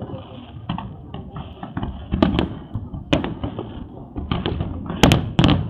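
Aerial fireworks shells bursting in a string of sharp bangs at irregular intervals, coming thicker and loudest about five seconds in.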